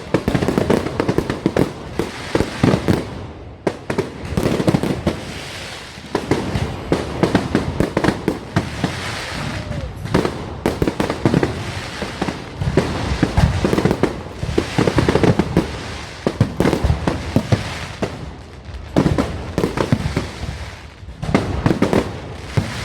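Fireworks going off in a dense, continuous crackle of many bangs and pops, coming in clusters with short lulls between them.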